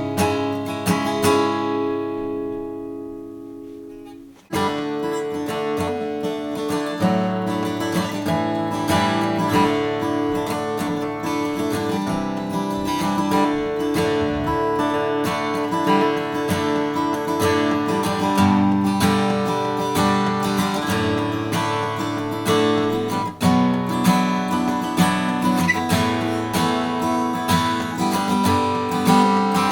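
Gibson J-45 acoustic guitar being strummed: a chord rings out and fades away over the first few seconds, then the strumming starts again abruptly and carries on steadily.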